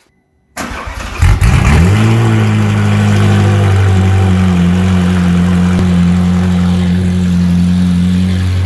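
Ferrari 458's V8 cold-started in freezing weather: after about half a second of cranking it catches loudly a little over a second in, the revs climb briefly and then settle into a steady idle.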